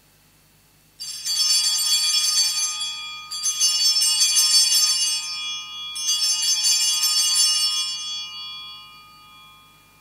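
Sanctus bells, a cluster of small altar bells, shaken by an altar server in three peals of about two and a half seconds each, marking the elevation at the consecration of the Mass. Each peal is a bright jangling ring, and the last one dies away gradually.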